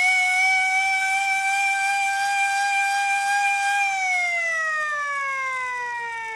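Small hand-crank air raid siren wailing at a steady high pitch, then winding down from about four seconds in, its pitch and loudness falling as the rotor slows.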